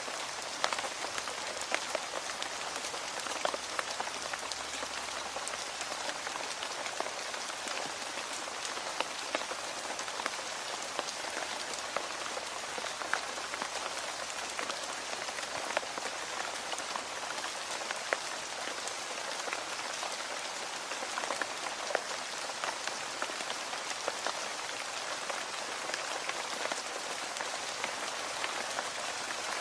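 Steady rain falling on a hard surface, an even hiss of rain with many small drop impacts ticking through it.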